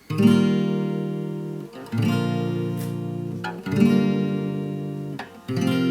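Acoustic guitar playing the intro of a song: four chords, each strummed once about two seconds apart and left to ring.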